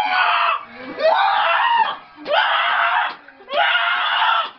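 A person screaming, four long loud screams one after another, each under a second and with short gaps between them.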